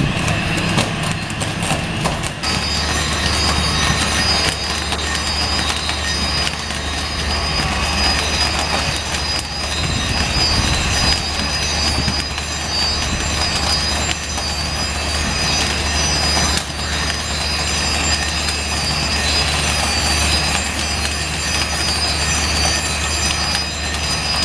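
Mobile flash butt rail welding machine welding a rail joint: a loud, continuous crackle of flashing as current arcs across the rail ends. A steady low hum and a high whine set in about two seconds in.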